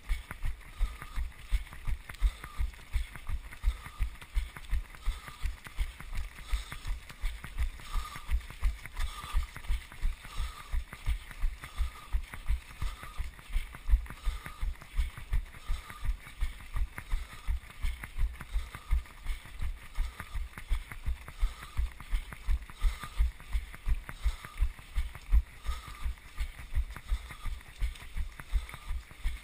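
A runner's stride heard through a body-worn GoPro: a steady rhythm of dull low thumps, about three a second, from each footfall jolting the camera, over a steady hiss of running feet and air.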